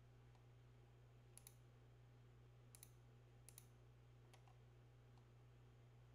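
Faint clicks of a computer mouse button, three quick double clicks about a second and a half, three and three and a half seconds in, over a low steady hum; otherwise near silence.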